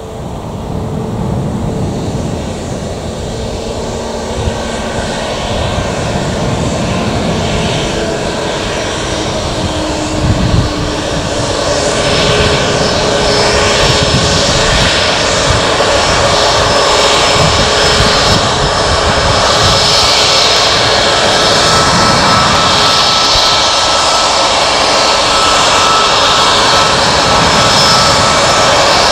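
Boeing 737 MAX 8's CFM LEAP-1B turbofan engines running at taxi power: a steady high whine over a rumble. The sound grows louder as the airliner taxis closer, with a jump in level about twelve seconds in.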